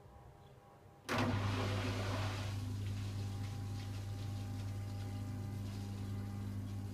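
Samsung WF6700 washing machine: about a second in, a steady electrical hum cuts in suddenly along with a rush of water, which settles into a steady flow.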